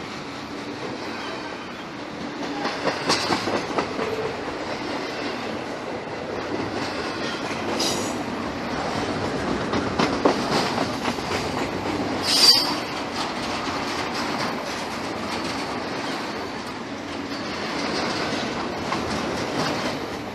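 Norfolk Southern freight train's cars rolling past: a continuous rumble of steel wheels on rail with clicking over the joints and some wheel squeal. A brief sharp high squeal about twelve seconds in is the loudest moment.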